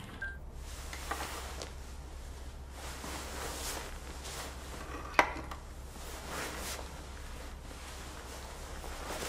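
Scattered small clinks and handling noises over a steady low hum, with one sharp click about five seconds in.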